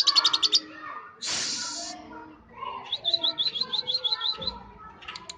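Young lovebird, about three months old, chattering as it learns its 'ngekek' call. It opens with a rapid pulsed trill, gives a harsh noisy burst about a second and a half in, then a quick run of short rising chirps, about seven a second.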